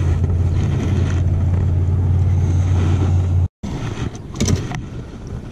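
A steady low rumble that cuts off abruptly about three and a half seconds in. It is followed by a few light clicks and rustles as a hooked catfish is handled in the lap.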